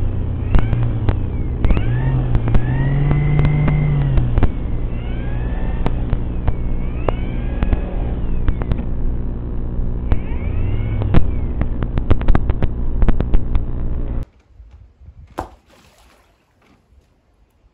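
RC model boat's motor and propeller running, the whine rising and falling in pitch with the throttle, with many sharp clicks. It stops abruptly about 14 seconds in, leaving only faint sound and a few small clicks.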